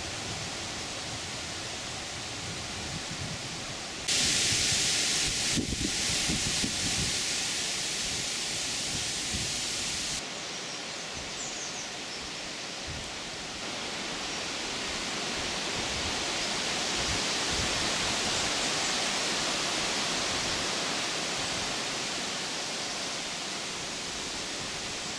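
Steady rushing noise of the kind made by wind, rain or running water. It turns abruptly louder and brighter about four seconds in and drops back just as suddenly about ten seconds in.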